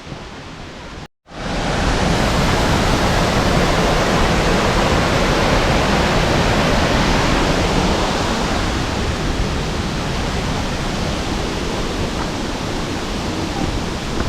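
Waterfall pouring, heard close as a loud, steady rush of water. It cuts in abruptly about a second in, after a brief dropout.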